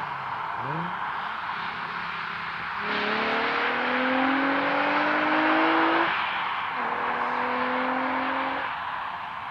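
Car engine pulling hard through the gears over a steady rush of road and wind noise. The engine pitch climbs for about three seconds, drops at a gear change, climbs again for about two seconds, then falls away near the end.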